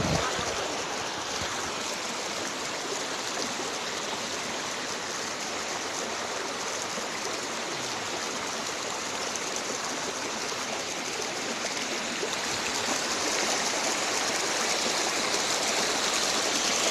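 Waterfall water rushing in a steady, even hiss, growing a little louder near the end.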